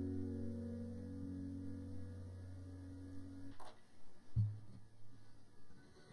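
The last chord of the background acoustic guitar music ringing out and fading away over about three and a half seconds. After that it is nearly quiet, with a faint click and a brief low note.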